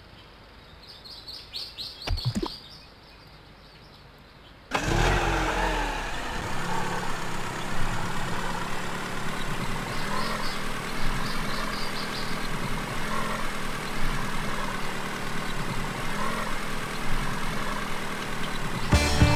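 A toy vehicle's electronic engine sound effect: an engine starting suddenly about five seconds in, then running steadily. A few faint chirps come before it.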